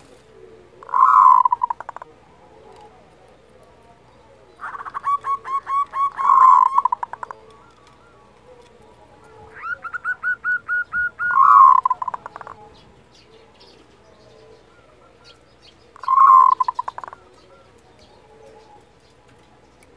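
Zebra dove (perkutut) giving its 'kerot' call: four bouts of calling. The first and last are short, while the two in the middle are a quick run of even staccato notes that ends in a louder, lower coo.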